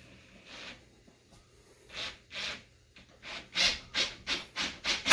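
A deck screw being turned by hand with a T25 star bit into pre-drilled hardwood: short rubbing, grating strokes, sparse at first, then about three a second and growing louder near the end.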